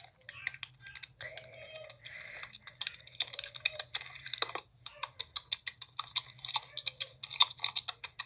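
Slime being pressed and kneaded by fingers: a rapid, irregular run of small crisp clicks and crackling pops.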